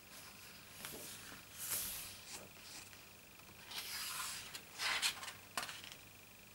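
Pages of a photobook being turned by hand: paper rustling and sliding in a few short bursts, with a couple of sharper flicks of paper about five seconds in.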